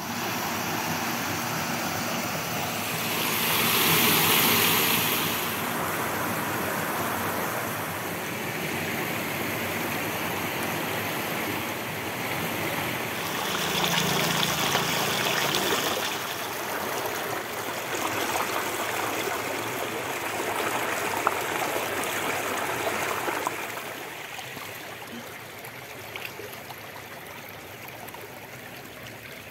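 Shallow stream water rushing and splashing over rocks and a low weir, a steady running-water noise that grows louder twice for a couple of seconds and turns quieter near the end.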